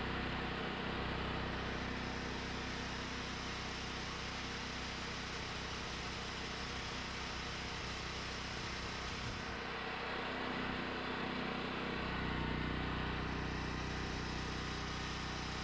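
Portable generator running steadily with a small-engine buzz, powering a battery charger on the truck's dead batteries.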